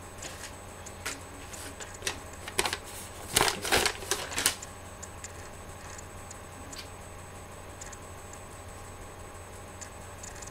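Light clicks and knocks of objects being handled, with a denser clatter from about two and a half to four and a half seconds in, over a steady low hum.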